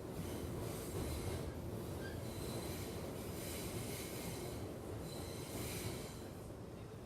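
Subway train in motion: a steady low rumble with a hissing, rattling noise on top that swells and fades every second or two, and a faint high wheel squeal near the middle.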